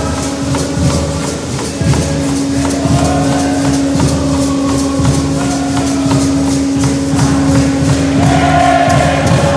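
Group of voices singing an alabanza (a devotional praise song) to rhythmic strummed mandolin- and guitar-type string instruments. The singing grows fuller near the end.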